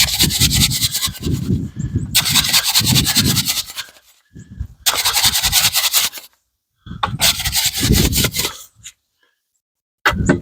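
A tool scraping and working through wet concrete in three bursts of rough scraping, working the air pockets out of the freshly poured concrete.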